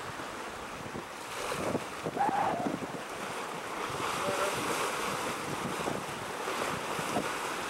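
Wind blowing across the microphone over sea waves washing on the shore, in uneven gusts.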